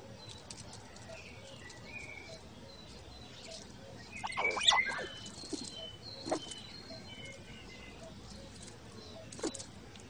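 Small birds chirping in the background, with the scratching and rustling of young red squirrels' claws on bark and on a hand as they take sunflower seeds. The loudest scrabble comes about four and a half seconds in, with smaller ones at about six and nine and a half seconds.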